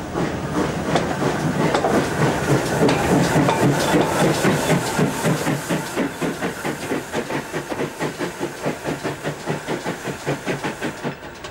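Collett 6400-class pannier tank steam locomotive working an auto train, with a steady rhythm of exhaust beats over the hiss of steam, easing a little toward the end.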